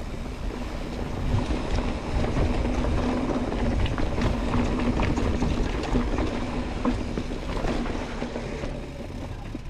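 Mountain bike rolling down a rocky trail: tyres rumbling over rock with many sharp knocks and rattles, under a steady rushing noise.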